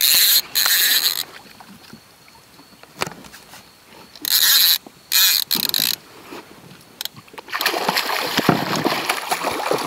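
Fishing reel buzzing in several short, loud bursts as a hooked wels catfish is played on the rod. About three quarters of the way in it gives way to heavy splashing as the catfish thrashes at the water surface beside the boat.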